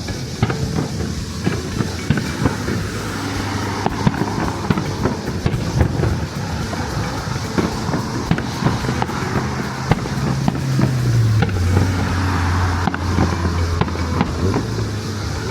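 Fireworks show at its climax: shells bursting in a rapid, irregular string of bangs and crackles, with a low steady drone under them in the second half.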